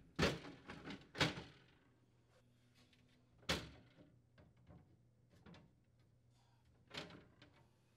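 Glass crisper shelf and plastic support of a Whirlpool Sidekick refrigerator being set back into place by hand: a few light knocks and clatters, two about a second apart at the start, another about three and a half seconds in and a fainter one about seven seconds in.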